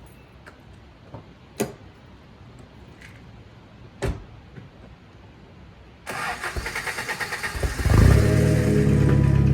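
Two sharp clicks, then a car engine cranked by the starter for about two seconds, with rapid even pulses, before it catches and settles into a loud, steady idle.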